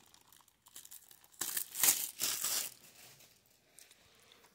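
Plastic shrink wrap being torn and peeled off a DVD case, crinkling in a few bursts about a second and a half in.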